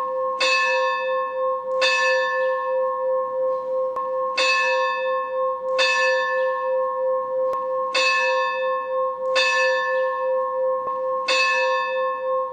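A church bell struck in pairs, two strokes about a second and a half apart, a new pair every few seconds, with its deep hum ringing on steadily between strikes.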